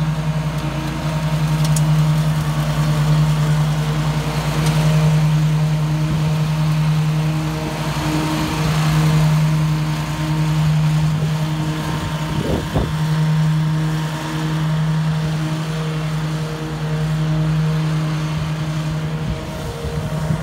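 Grasshopper 524V out-front zero-turn mower's engine running steadily under mowing load as the mower drives and turns. The hum swells and eases slightly every couple of seconds.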